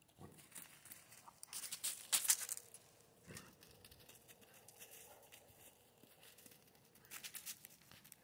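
Faint crunching footsteps on thin snow, in two short bouts: a louder one about two seconds in and a shorter one near the end.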